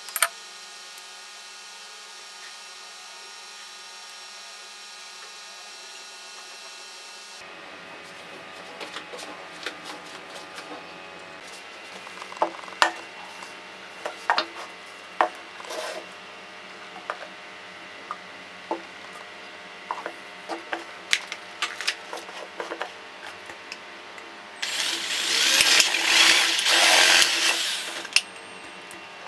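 Scattered knocks and clicks of objects being handled and set down on a wooden board. Then, about 25 seconds in, a power drill with a stepped bit boring through a thin plastic cup for about four seconds.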